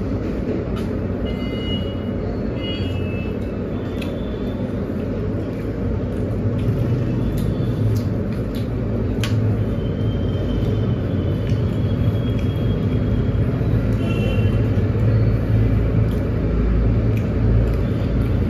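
A steady low rumble that grows a little louder about six seconds in, with faint scattered clicks and a few short high chirps over it.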